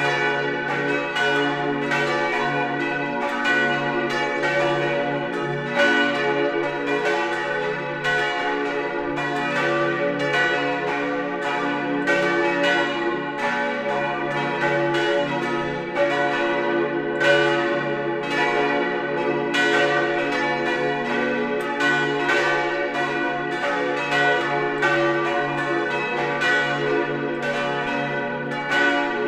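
Full peal of a parish church's bells, the main four tuned D, F-sharp, A and B, ringing together. The strokes overlap in a steady, unbroken stream of ringing tones.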